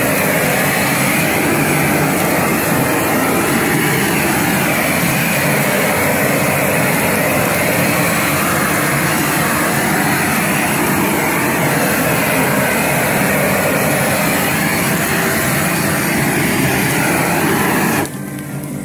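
Garden flame-thrower torch burning at full flame: a loud, steady rushing noise of the burner, which cuts off near the end.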